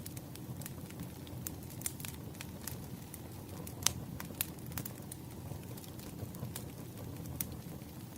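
Campfire crackling: a steady low rumble of burning wood with scattered sharp pops and snaps, the loudest about four seconds in.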